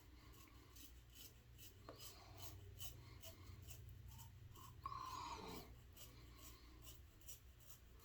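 Gillette Red Tip safety razor with a Kai blade scraping through lathered stubble in short strokes, a few a second, faint. About five seconds in there is a brief louder sound with a falling pitch.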